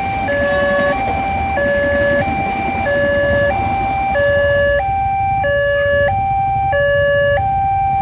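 Railway level-crossing warning alarm sounding a two-tone electronic signal, alternating high and low pitches, each held about two-thirds of a second, warning that a train is passing.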